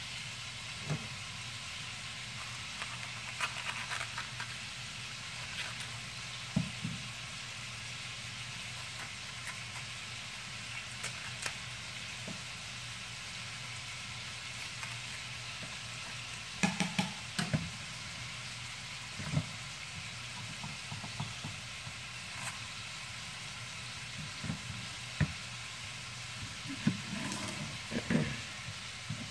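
Ground beef frying in a pan: a steady sizzling hiss with scattered small pops. Now and then come short knocks of a kitchen knife cutting a bell pepper on a plastic cutting board, a few close together about two-thirds of the way in and again near the end.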